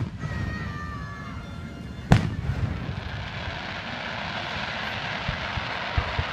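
Aerial firework shells at a display: a loud bang about two seconds in, followed by a few seconds of steady crackle and two small pops near the end.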